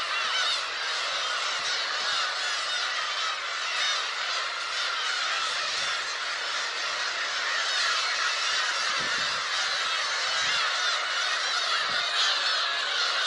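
A black-tailed gull colony calling, many birds' cat-like mewing calls overlapping into a steady, unbroken din.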